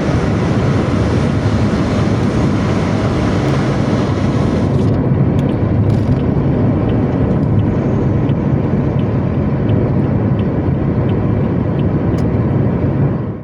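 Steady engine and road noise of a vehicle driving along a road at night speed, a constant low rumble with tyre hiss; the high hiss drops away about five seconds in.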